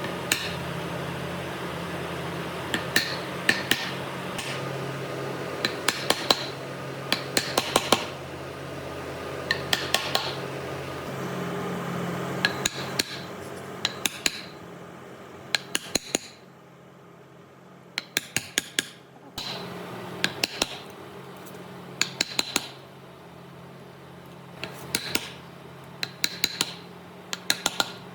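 Hand tool, likely a hammer, tapping on wood in short quick clusters of two to five sharp knocks, with pauses between clusters, over a steady low hum.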